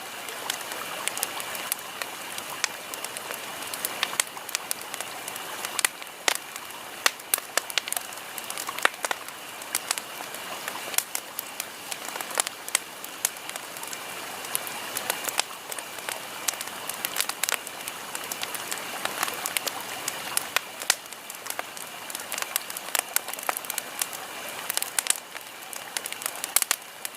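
Bonfire crackling: a steady hiss of burning with frequent sharp, irregular pops and snaps.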